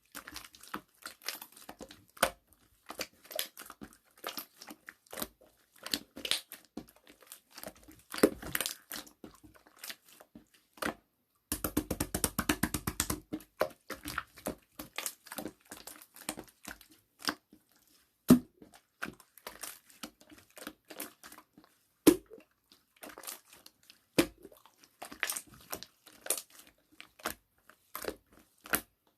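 White slime being squished, pressed and stretched by hand: quick runs of sticky clicks and small air-bubble pops in bursts, with a couple of single louder snaps.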